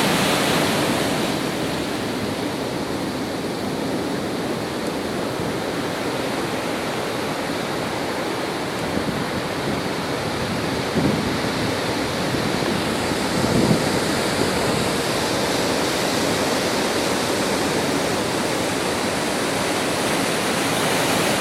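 Rough sea: a steady rush of heavy surf, with two brief louder surges of water about eleven and thirteen and a half seconds in.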